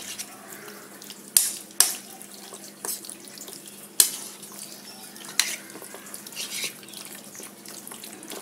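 Sliced raw beef being squeezed and mixed by hand in a bowl of teriyaki marinade with onion: soft wet squelching, with a few sharp clicks against the bowl.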